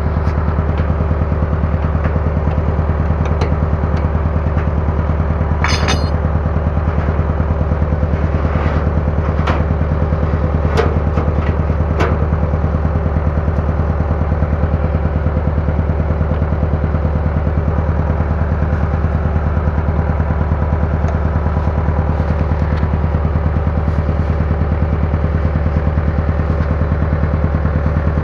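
Bulldozer's diesel engine running at a steady, unchanging speed, with a few sharp clanks now and then.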